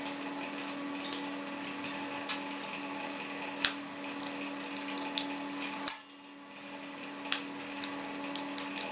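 Soft, scattered clicks and ticks of gloved fingers mixing coarse salt and mould powder in a small glass dish, over a steady low hum. The sharpest click comes about six seconds in, and the hum dips out briefly after it.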